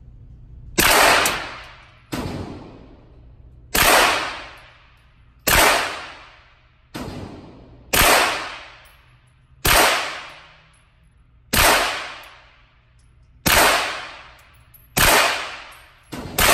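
Suppressed B&T APC9 9mm carbine fired in slow, deliberate single shots: about eleven shots, one every second and a half to two, two of them weaker. Each crack rings out in the reverberant indoor range.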